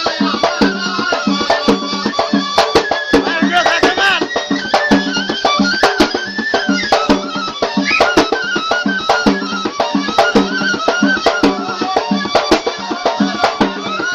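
Yafi'i Yemeni folk music: a reed pipe (qasaba) playing a winding, ornamented melody over a steady beat on a drum.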